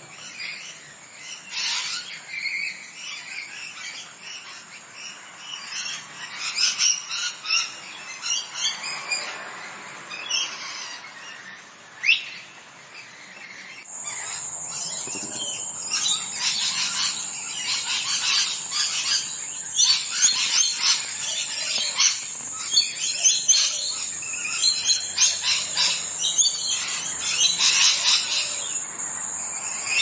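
Parrots chirping: many short, high chirps and calls in quick succession. About halfway through, the background grows louder and a steady high-pitched whine joins, under denser chirping.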